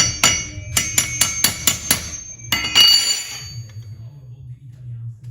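Metal-on-metal knocks and clanks, about four a second for the first two seconds, then one louder, ringing clank: steel parts striking as a new front CV drive shaft is worked into the wheel hub.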